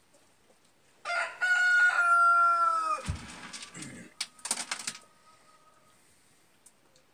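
A rooster crowing once, about a second in: a long held call that drops in pitch at the end. A few brief scuffling noises follow.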